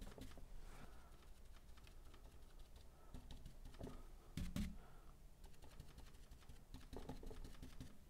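Faint, irregular tapping of a paintbrush dabbing acrylic paint onto canvas, a little stronger a few times near the middle.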